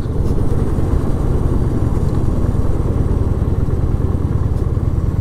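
V-twin cruiser motorcycle engine running at a steady idle while the bike coasts in neutral, a constant low rumble with wind and road noise.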